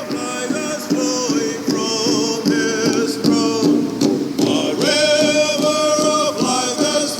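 Background music with singing: a sung melody with held notes over accompaniment.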